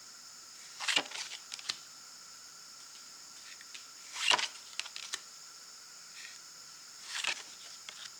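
Plastic (PVC) tarot cards being handled and turned over one at a time: three brief swishes, each followed by a few light clicks, about three seconds apart.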